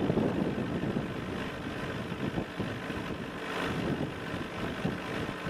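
Junior racing karts' small two-stroke engines running at speed as they pass through the corners at a distance, with wind on the microphone. The sound briefly grows brighter a little past halfway as a kart comes nearer.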